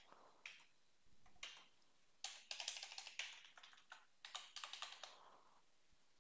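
Typing on a computer keyboard: a few scattered keystrokes, then two quick runs of keys a little after the middle.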